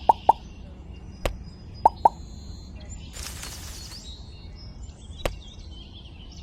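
Short sharp plops: three in quick succession at the start, then two more about two seconds in, with a couple of single clicks and a brief hiss near the middle. Faint high chirps sound in the background.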